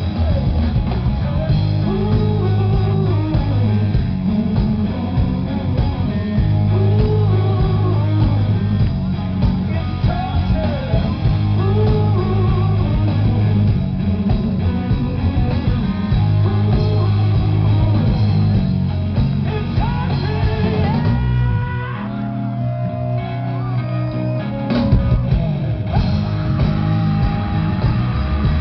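Rock band playing live: electric guitar, bass and drums with singing. About three quarters of the way through, the bass and drums drop out for a few seconds, leaving a lone guitar line with bent notes, then the full band comes back in.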